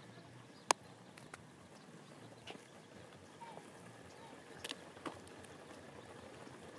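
Faint outdoor street ambience broken by several sharp clicks, the loudest about a second in.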